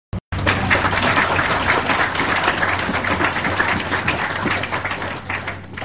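Audience applauding, a dense patter of many hands that starts just after a brief dropout in the cassette recording and thins out near the end, over a steady low hum.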